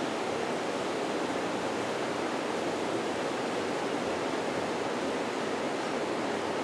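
Steady, even rushing noise with no distinct sounds standing out of it.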